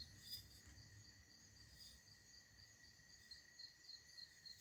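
Near silence with faint insect chirping, high-pitched and repeating about four times a second.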